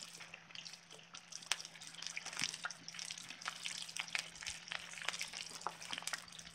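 Battered chicken gizzards deep-frying in hot oil in a cast-iron cauldron lid: the oil sizzles with many small, irregular pops and crackles, which grow denser about a second in.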